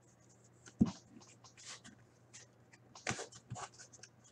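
Crinkling and rustling of packaging with a sharp knock about a second in and a few clicks around three seconds: hands handling and unwrapping a sealed box of hockey cards.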